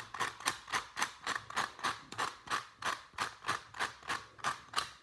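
Qiyi clock puzzle's wheel being turned by hand, its clock dials clicking through their hour positions in an even run of sharp clicks, a little over three a second. The puzzle is being broken in, freshly lubed with DNM-37.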